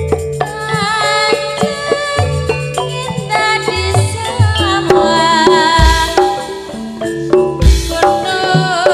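Live campursari music: a Javanese ensemble of kendang hand drums and pitched percussion, with a wavering melody line over it. Two deep drum strokes fall in the second half.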